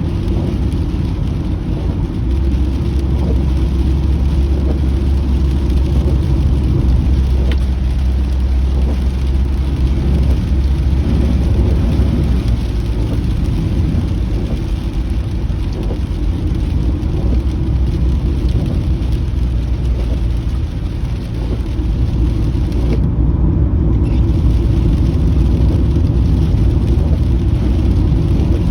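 Steady low road and engine rumble inside a moving car's cabin, with rain on the car as a faint hiss above it. The hiss briefly drops out about 23 seconds in.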